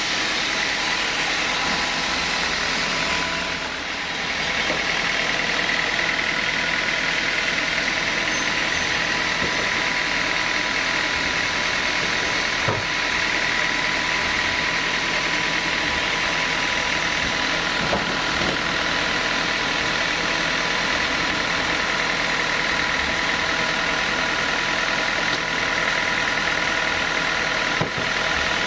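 Sawmill saw and its drive running steadily through teak, with a steady whine and a brief dip about four seconds in, after which a higher tone comes up. A few sharp knocks stand out later on.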